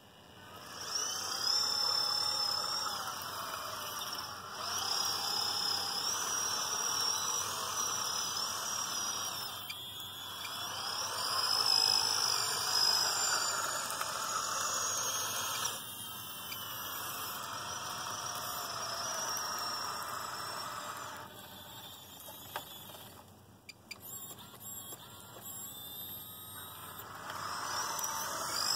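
Small electric motors and gearboxes of an RC Cat 963 track loader whining, the pitch rising and falling as it tracks, turns and lifts its bucket. It comes in several runs, broken by short pauses.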